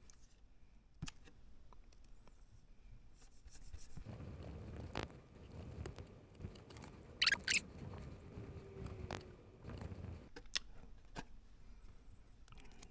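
Scraping and small clicks of hand-tool work on a plastic Mini 4WD chassis part, trimming it to sit flush, with a brief sharp high-pitched scrape about seven seconds in.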